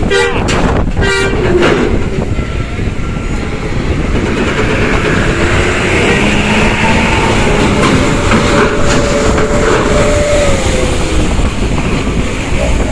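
Large intercity bus's diesel engine running loudly as it passes, with a rattling clatter in the first second or so and a faint held tone later.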